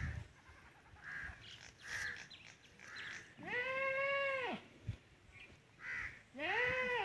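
A goat bleating twice: two long, drawn-out bleats of about a second each, rising and then falling in pitch, the second near the end. Shorter, fainter calls come in between.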